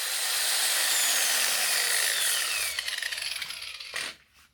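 Power grinding tool cutting through a motorcycle chain link, a steady grinding hiss whose motor pitch falls slowly as it works, stopping about four seconds in.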